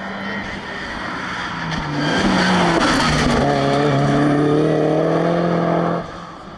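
Ford Focus RS Mk1's turbocharged 2.0-litre four-cylinder engine under hard acceleration as the competition car passes close by, growing much louder about two seconds in. The engine note dips briefly about three seconds in, then holds at high revs before stopping abruptly near the end.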